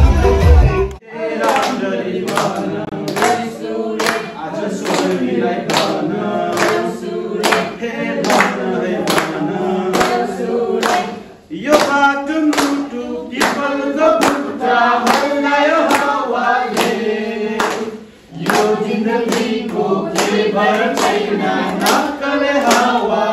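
A group of young people singing together without instruments, clapping in time about twice a second, with two short breaks between verses. Loud dance music from a loudspeaker cuts off about a second in.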